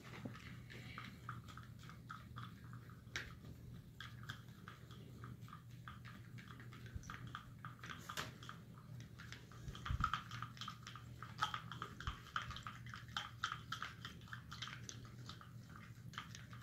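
A stirring stick scraping and clicking against the inside of a cup as glue is mixed into warm water for slime, in quick irregular strokes, with one soft bump about ten seconds in.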